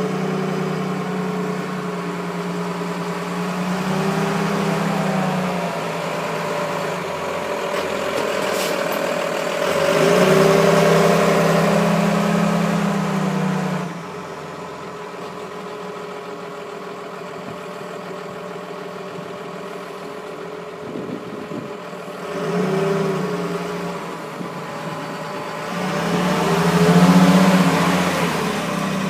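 1998 Entwistle MB-4 aircraft tug's 5.9 Cummins inline-six diesel running as the tug drives, swelling louder under throttle several times and easing back between, loudest about ten seconds in and again near the end.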